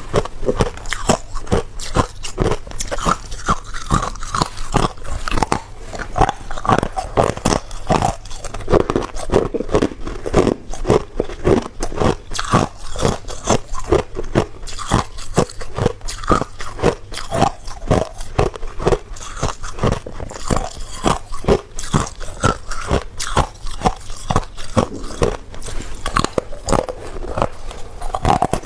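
A person biting and chewing ice close to the microphone: a quick, unbroken run of sharp crunches.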